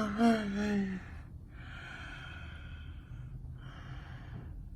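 A man's drawn-out "uh" that falls in pitch, then two long audible breaths close to the microphone as he pauses to think.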